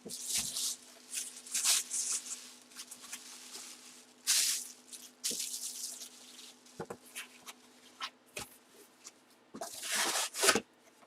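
Plastic packaging rustling and crinkling as it is handled, in short bursts, with a few light knocks. The loudest rustle comes near the end.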